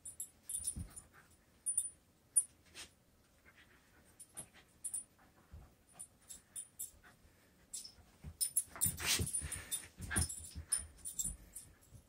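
A small dog playing with a toy on carpet and among clothes: scattered short clicks, snuffles and rustles, busiest and loudest from about eight to ten seconds in.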